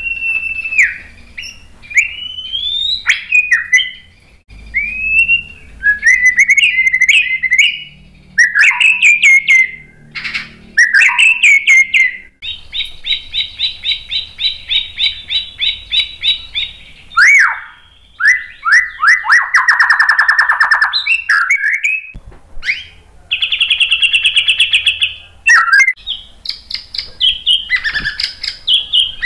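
White-rumped shama (murai batu) singing a long, varied song: clear whistled notes sliding up and down, broken by several fast rattling trills and a buzzy trill. It is a full song, with the bird running through its repertoire of learned phrases.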